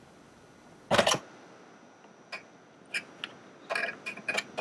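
Metal seat frame and hinge bracket being handled: a short loud clatter about a second in, then a string of sharp clicks and clacks as the parts are worked into place.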